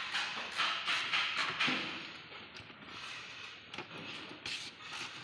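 Footsteps scuffing on a concrete floor, about two a second, dying away about two seconds in; then quieter rustling with a few short clicks.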